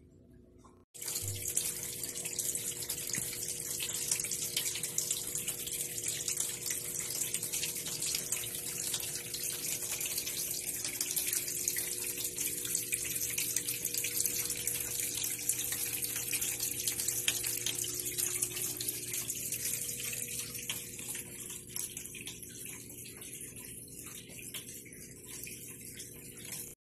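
Steady running, splashing water with a faint steady hum underneath, as from the water feature of a snake vivarium. It starts abruptly about a second in and cuts off just before the end.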